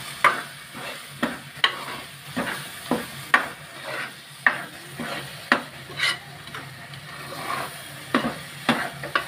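A metal spoon stirring a dry, crumbled shark-fish mixture in an aluminium pot, scraping and knocking against the pot about twice a second in an uneven rhythm. Under it is a light sizzle as the mixture fries with masala powder.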